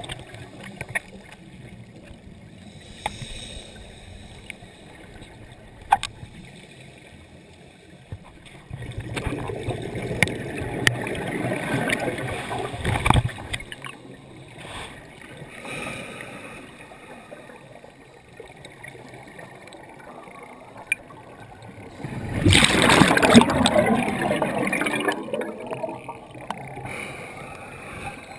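Scuba diver's exhalation through the regulator: two long bursts of bubbling, about nine seconds in and again past twenty seconds, with faint clicks and hiss between them. The sound is muffled by the camera's waterproof dive housing.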